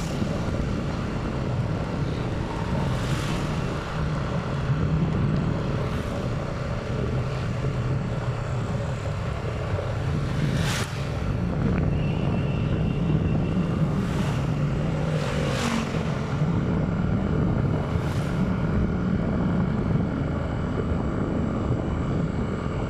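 Motorcycle engine running steadily while riding along a road, with a few short sharp sounds scattered through.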